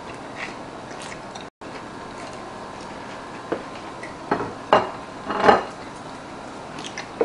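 Chewing a bite of crisp-crusted French bread pizza, with three louder short crunchy noises about four to five and a half seconds in.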